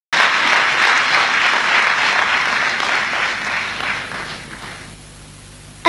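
A large audience applauding, the clapping dying away about four to five seconds in.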